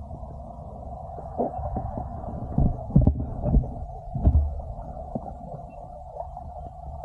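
Muffled sound, as heard through a camera's waterproof housing: a steady low hum and rumble, with several dull thumps and knocks from about two and a half to four and a half seconds in.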